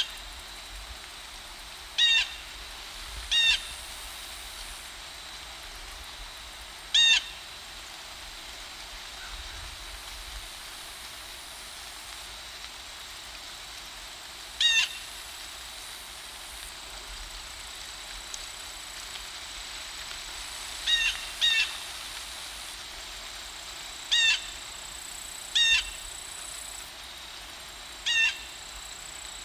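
A bird calling over and over: short pitched calls, about nine in all, coming at uneven gaps of one to seven seconds, over a steady faint hiss.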